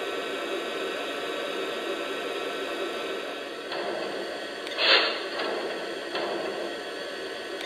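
Steady hiss from the sound system of a Lionel Legacy Ten-Wheeler O-gauge model steam locomotive standing at idle, with a brief louder hiss about five seconds in.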